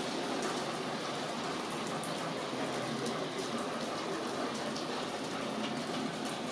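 Rain falling steadily, with many separate drops striking sharply close by.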